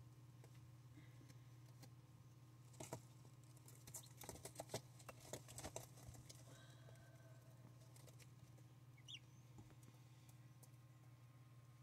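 Faint clicks and taps of turkey poults pecking at the paper and shavings of the brooder floor, bunched about three to six seconds in, over a steady low hum. One short, high peep about nine seconds in.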